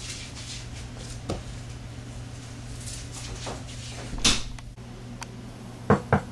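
Faint steady hum of room noise with scattered light knocks, one sharp loud thump a little after four seconds, and a quick run of two or three knocks near the end.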